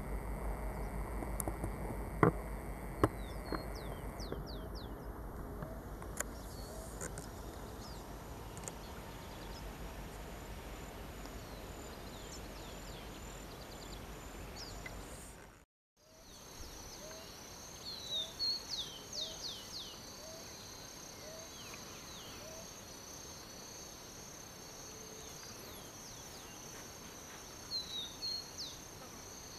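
Countryside ambience of insects and birds: a steady high insect trill, a short low chirp repeating a little more than once a second, and a few quick falling bird calls. The sound cuts out abruptly about halfway through and resumes with the same kind of ambience.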